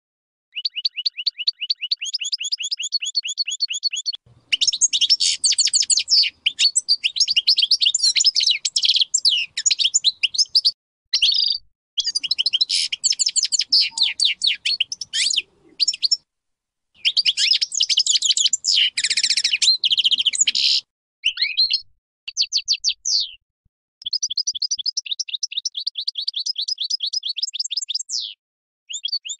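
European goldfinch of the large 'Major' type singing: long phrases of fast, high twittering and trills, broken by several short pauses of under a second.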